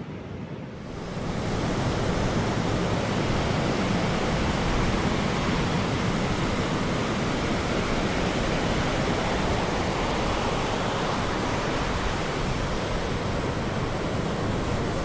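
Ocean surf breaking, a steady rush of water noise that comes up about a second in and then holds level.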